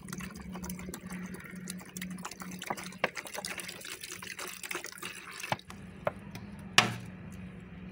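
A stream of water pouring and splashing into a plastic basin partly full of water; the pour stops about five and a half seconds in, leaving a few drips, then one sharp click near the end.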